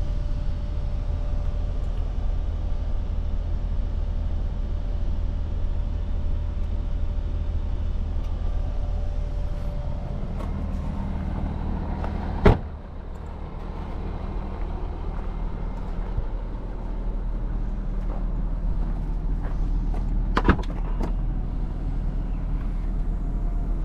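A car's steady low rumble. About halfway through a single sharp thump is the loudest sound, and the level dips briefly after it. A second, smaller knock comes near the end.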